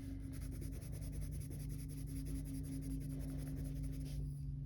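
Colored pencil shading back and forth on sketch-pad paper in quick, fine strokes, stopping about four seconds in. A steady low hum runs underneath.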